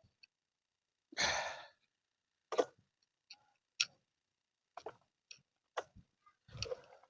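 A person sighing heavily about a second in, then scattered short knocks and taps, and another breathy exhale near the end.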